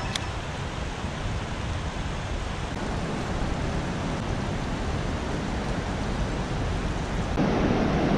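Steady rush of flowing river water. It gets louder and fuller about seven seconds in.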